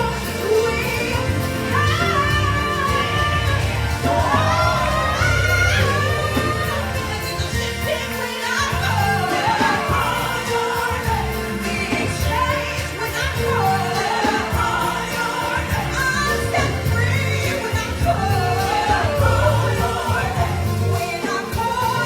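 Choir singing a gospel song with a live band and a steady bass line.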